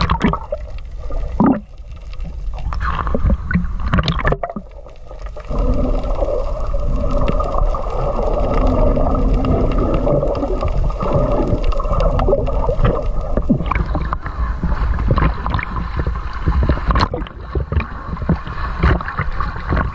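Seawater sloshing and bubbling around a camera held at the sea surface, turning into a steady muffled rush while the camera is under water.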